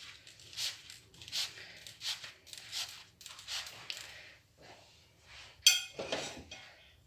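Phyllo pastry sheets rustling and crinkling as they are rolled up by hand, in soft swishes a little more than once a second. Near the end comes one sharp clink.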